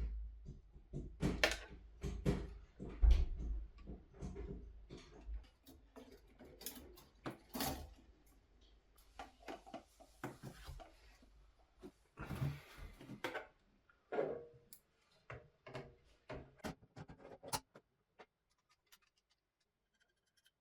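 Irregular clicks, knocks and rustles of hands handling and fitting computer parts during a PC build, with a low hum under the first five seconds or so. Near the end it goes almost quiet.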